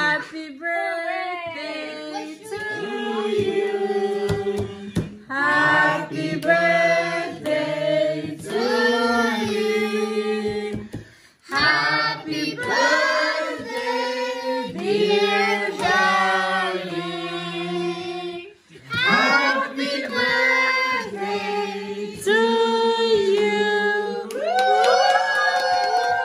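A group of adults and children singing a birthday song together, in phrases with held notes and short breaks between them, with hands clapping along.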